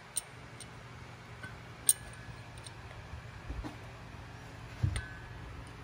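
A few sharp metallic clicks and clinks as a steel engine valve is slid into its guide and seat in a cylinder head. The loudest click is about two seconds in. Another comes near the end with a short ring.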